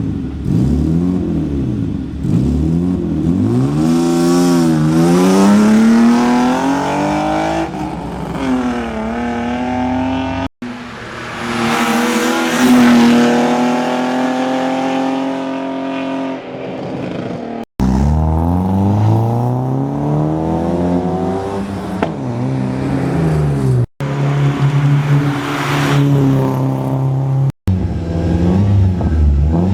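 Hill climb racing car engines revving hard, their pitch climbing and dropping again and again through gear changes as the cars go past. The sound breaks off abruptly four times and jumps to another car's run.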